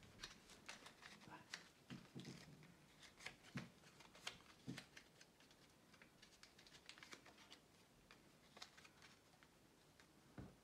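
Faint crinkling and clicking of paper strips being folded over and over into a concertina paper spring, busier in the first half and sparser later.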